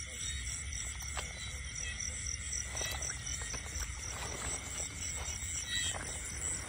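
Night chorus of insects and frogs: steady, pulsing high-pitched chirping over a low rumble, with a few faint clicks.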